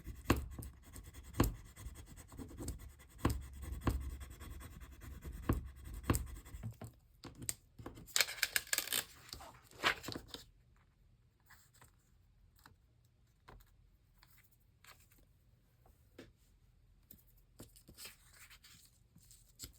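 Paper being handled on a work surface: rustling, scraping and light taps, with a longer rustle about eight to ten seconds in, then only faint scattered taps.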